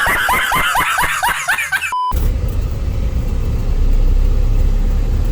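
Hyundai truck's engine and road noise heard from inside the cab, a steady low rumble from about two seconds in. Before that come short, quickly repeated vocal bursts, like laughter.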